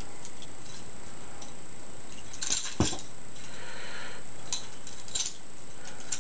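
Balisong (butterfly knife) being flipped through a rollover: sharp metallic clicks of the handles and blade clacking together, a quick cluster a few seconds in and a few single clicks after.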